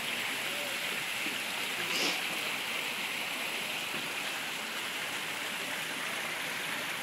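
Water jets of a plaza fountain spurting and splashing onto its wet stone deck in a steady rush, with a brief louder burst about two seconds in.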